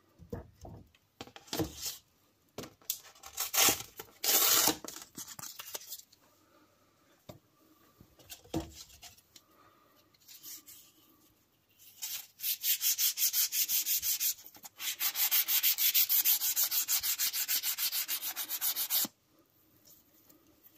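A folded pad rubbed briskly back and forth over the wax-coated wooden handle of an Opinel folding knife, buffing the wax in. It starts with a few scattered rubs and handling knocks, then in the second half becomes a fast, even run of strokes, several a second, which stops abruptly shortly before the end.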